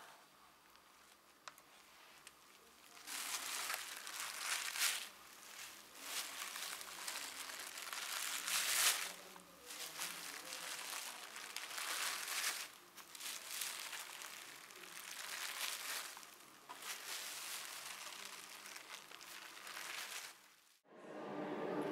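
Clear plastic sheeting crinkling under bare, paint-covered feet stepping and walking across it, in repeated rustling surges about a second long. The first few seconds are quiet, and near the end the sound cuts off abruptly.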